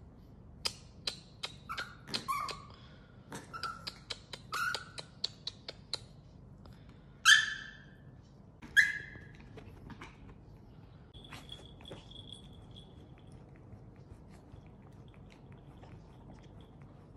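A pet's short high-pitched squeaks and chirping cries, in a quick run of clicks and squeaks over the first six seconds, then two louder cries about seven and nine seconds in.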